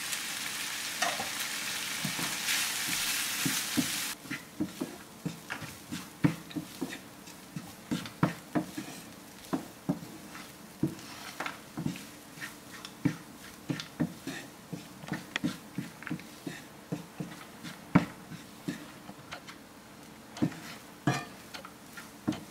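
Hot pan sizzling under freshly added cooked rice, cutting off suddenly about four seconds in. Then a wooden spatula knocks and scrapes irregularly against a nonstick frying pan as the rice is stirred into the lemon-and-turmeric tempering.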